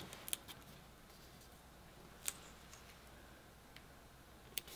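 Fingers pressing and smoothing a paper sticker strip onto cardstock: quiet paper rubbing with a few sharp clicks, the sharpest a little over two seconds in.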